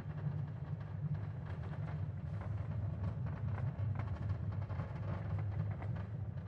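Recorded sound of an earthquake: a deep, continuous rumble with scattered crackling and rattling over it.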